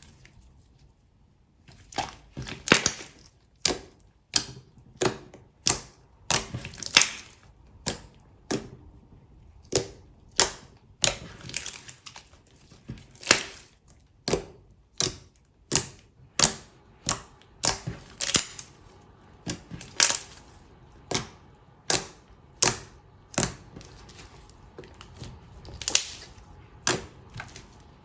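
Slime being mixed by hand, giving a series of sharp clicks and pops about one to two a second, starting about two seconds in.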